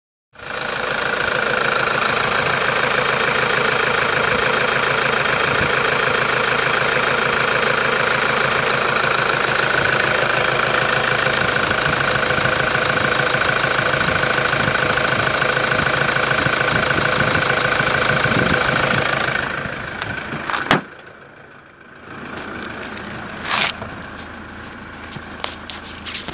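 2007 Toyota Hilux's 3.0-litre four-cylinder common-rail turbo-diesel idling steadily with diesel clatter. About three-quarters of the way through the sound drops and turns muffled, with a few sharp clicks and knocks.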